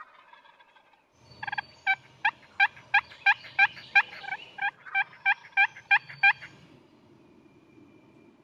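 Wild turkey yelping: a run of about fourteen short, sharp notes that drop in pitch, about three a second, lasting some five seconds.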